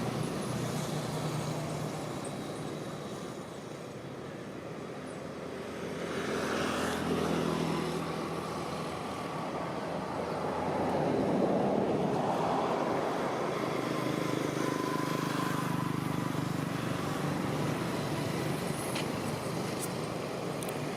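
Motor vehicle engines running, with traffic noise swelling as vehicles pass, loudest about ten to thirteen seconds in.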